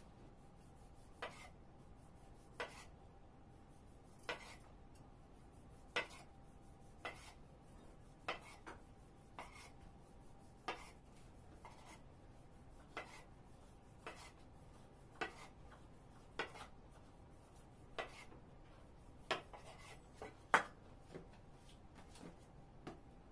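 Kitchen knife cutting a rolled log of dough into rounds on a wooden table: a short, sharp knock with each cut, roughly one every second and a half, one stroke near the end louder than the rest.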